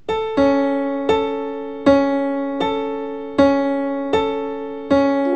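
Software grand piano (Ableton Live's Grand Piano instrument) playing single notes about every three-quarters of a second, each struck note fading before the next. Each note is a MIDI note triggered when the sphere hits a cube in the TouchDesigner patch.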